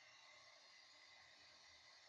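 Near silence: a faint steady hiss with a few faint high tones, and no distinct sounds.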